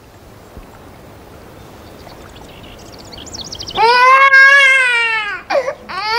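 A high wailing cry. The first three seconds are quiet; then come a few quick rising squeaks and, about four seconds in, a loud, long wail that bends up slightly and falls away, followed by shorter wails near the end.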